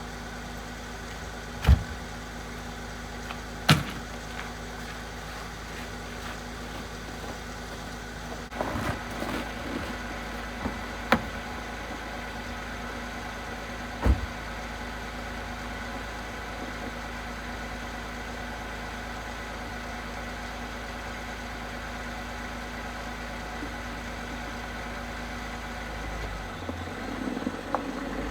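Vehicle engine running steadily with an even hum, broken by a few sharp knocks or clicks.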